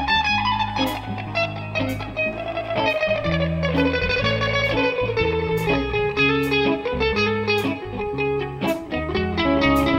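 Live band playing an instrumental passage: an electric guitar lead line that slides slowly down in pitch, over a bass guitar and drums keeping a steady beat.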